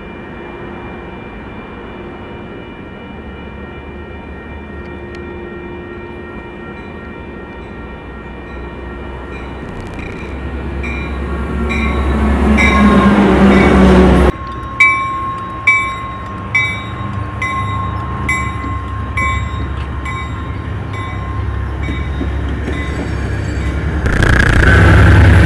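Metrolink double-deck commuter train rolling by close at hand: a rumble that builds to loud, then sharp wheel clacks over the rail joints about once a second with a faint steady squeal, and growing loud again near the end as more of the train passes.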